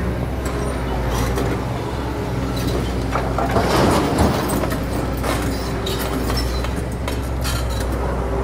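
Komatsu PC200 hydraulic excavator's diesel engine running steadily while it digs, with scattered light clanks of the arm and bucket. A louder rush of noise comes about four seconds in as the bucket goes down into the soil bank.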